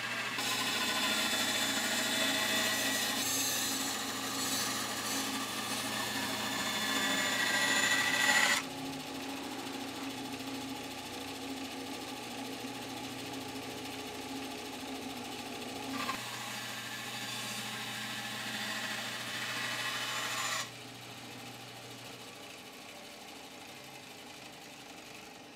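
Bandsaw cutting wood in two passes, the first about eight seconds long and rising in pitch just before it ends, the second about four seconds long, with the saw's motor and blade running steadily between them. After the second cut the saw's hum dies away.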